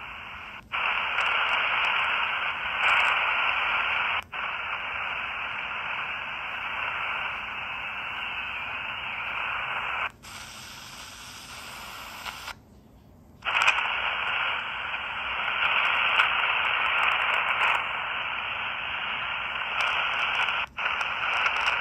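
Static hiss from a 4732 miniature shortwave radio's small speaker, with no station coming through, in keeping with poor reception. It cuts out sharply three times and dips for about three seconds near the middle.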